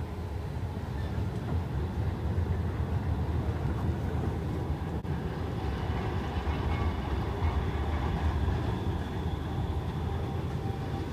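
Electric trams at a city stop: a steady low rumble with faint steady whining tones above it, broken briefly about five seconds in.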